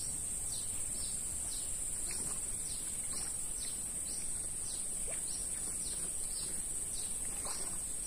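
Wild birds calling in a string of short falling notes, about two a second, over a steady high-pitched insect drone.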